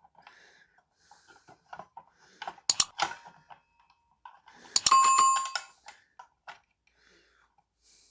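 Steel circular-saw parts clinking and knocking as the outer collet and arbor bolt are fitted over the blade. About five seconds in, one sharp metal strike rings clearly for most of a second.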